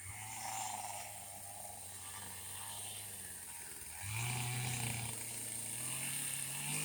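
An engine running steadily, getting louder and rising a little in pitch about four seconds in.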